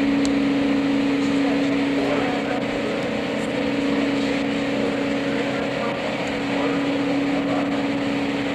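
Marshmallow packaging machinery running steadily: a constant hum with a strong low tone over an even mechanical noise.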